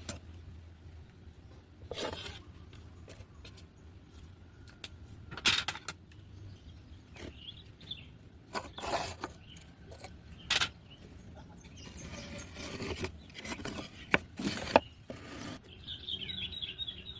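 Irregular scraping, rubbing and knocking of work on wood, in separate strokes of varying length, with a couple of sharp clicks near the end. Birds chirp briefly in the last second or so.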